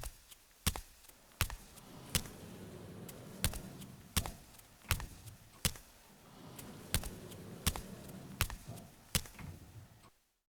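A steady series of sharp knocks, about one every three-quarters of a second, over a faint low background noise; the sound cuts off suddenly about ten seconds in.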